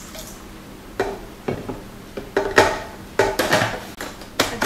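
Light clicks and knocks of plastic parts as a food processor's feed-tube pusher and lid are handled and fitted, a string of sharp taps after a quiet first second.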